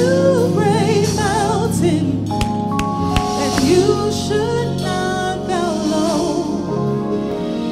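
Gospel worship song: a lead singer with a wavering vibrato over steady held chords.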